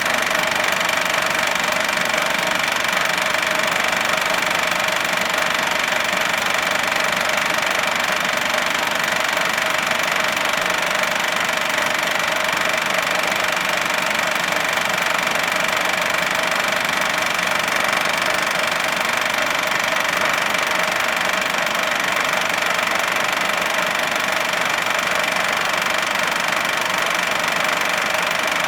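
Projector running steadily: an even mechanical noise with two steady tones in it, one in the middle and one higher up.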